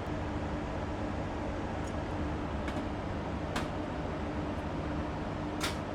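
Steady fan-like hum with three faint, sharp clicks about a third, half and nearly all the way through: small tools working on an opened hard drive's head assembly.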